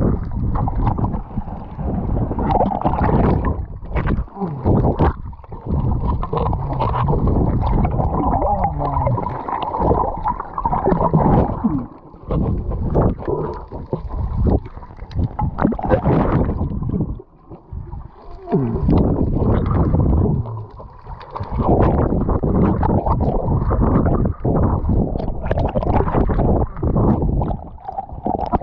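Muffled rushing and gurgling of seawater around an action camera's housing as it moves underwater, uneven in level with a few brief lulls.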